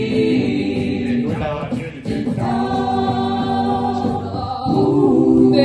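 A cappella vocal group singing a doo-wop arrangement, the voices holding sustained chords between the lead's sung lines.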